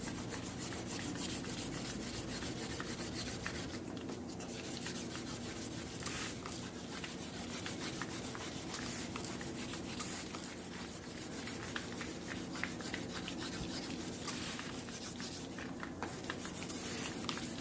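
Wet sanding of a car's clear coat: 600-grit sandpaper on a sanding board rubbed back and forth over a wet painted body panel, a steady rasping scrub made of many quick strokes. It breaks off briefly twice, about four seconds in and near the end.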